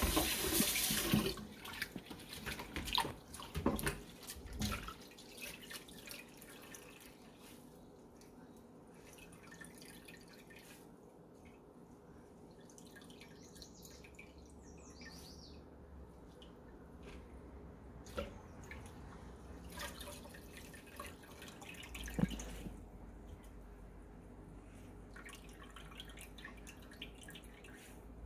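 A kitchen tap runs and shuts off about a second in. Then water drips and patters from rinsed shredded carrots as they are squeezed out by hand, with light knocks of handling and a few scattered drips.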